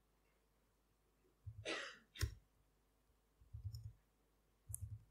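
A breath out into the lectern microphone about a second and a half in, followed by a sharp knock and then a few short runs of laptop key presses picked up as soft thumps and ticks.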